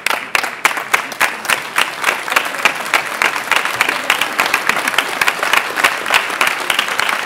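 Audience applauding, many hands clapping at once; it breaks out suddenly and keeps up steadily.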